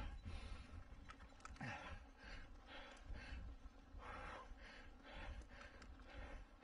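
Mountain-bike racer's hard, fast breathing at full effort, about two breaths a second, over a steady low rumble.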